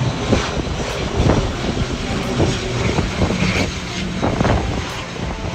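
ATR 42 twin-turboprop airliner on final approach with its landing gear down, its engines and propellers running in a steady noise as it passes close by.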